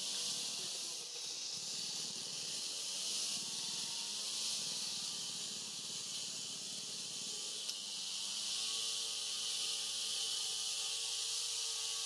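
Steady high-pitched hiss, with faint wavering tones underneath from about eight seconds in.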